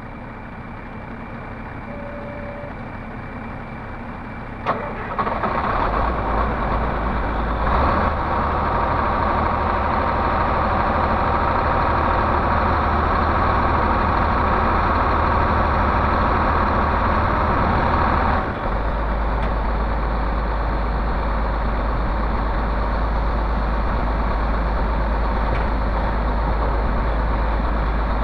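Komatsu PC300 excavator's diesel engine starting up after a sharp click about five seconds in, running at raised speed, then dropping to a steady low idle about eighteen seconds in.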